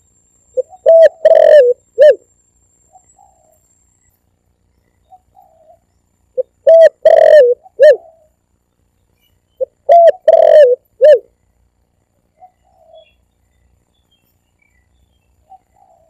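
Spotted dove (tekukur) cooing: three loud phrases of several low, pitched coos each, about four seconds apart, with a few faint single notes between them. This is a recorded call used as a lure (pikat) for hunting spotted doves.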